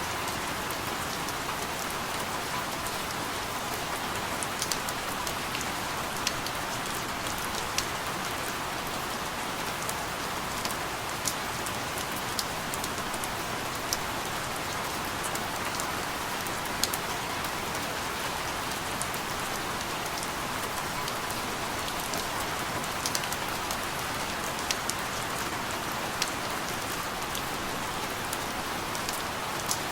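Steady rain falling on a surface, an even hiss with scattered individual drops ticking sharply throughout.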